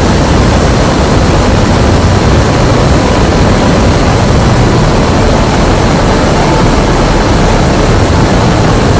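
SpaceX Raptor rocket engine test-firing at steady thrust: a loud, unbroken rush of exhaust noise with a heavy low rumble, holding constant throughout.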